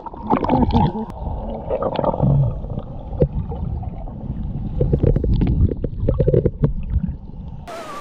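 Muffled water sloshing and thudding around a waterproof camera held in the surf, with repeated knocks and bumps. Near the end it cuts abruptly to the open hiss of breaking surf.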